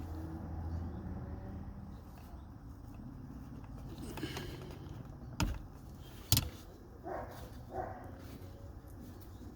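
Wire strippers working on a thin blue automotive wire: faint handling noise with two sharp clicks about a second apart midway, as the insulation is cut and pulled off.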